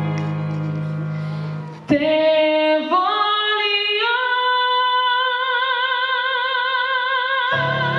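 A boy soloist singing in Italian over an orchestral backing track. About two seconds in, the backing drops away and his voice climbs step by step into a long high note with vibrato, held for about three seconds. The backing returns just before the end.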